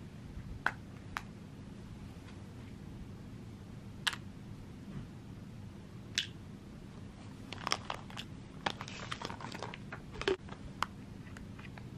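Scattered small, sharp plastic clicks and taps, about a dozen, with a short rustle of handling about eight to ten seconds in: a plastic weekly pill organizer and vitamins being handled as it is filled.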